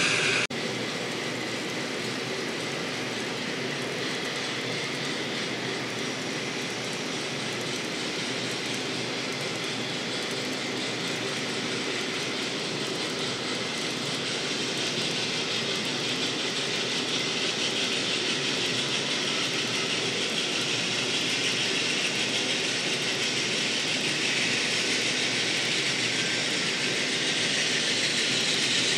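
N-scale model freight train of covered hopper cars rolling along the track, a steady rushing clatter of small wheels on rail that grows gradually louder toward the end.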